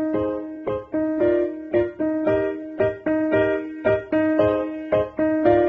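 Background piano music, notes struck at an even pace of about three a second.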